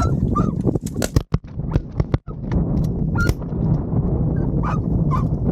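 Geese honking in short calls, over a steady low rumble of wind, with a few sharp knocks in the first couple of seconds.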